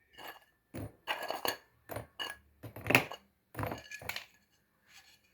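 Kitchen dishes and utensils clinking and knocking together as they are handled: about a dozen short, irregular knocks, some with a faint ring.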